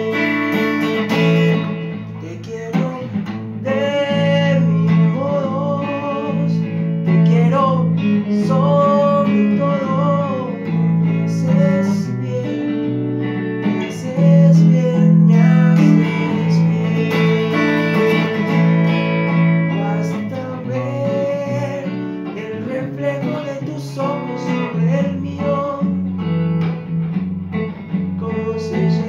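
Electric guitar playing a wordless melodic passage, with bent, gliding notes over sustained low chords that change every few seconds.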